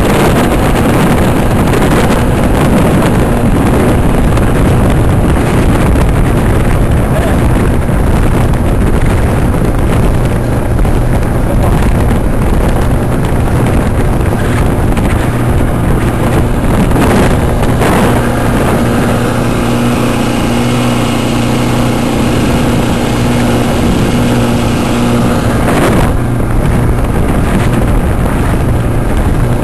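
1959 Johnson 35 hp two-stroke outboard motor running at speed, driving a wooden speedboat, with wind on the microphone and water rushing along the hull. The engine note is steady, settling into a clearer hum for several seconds about two-thirds of the way through.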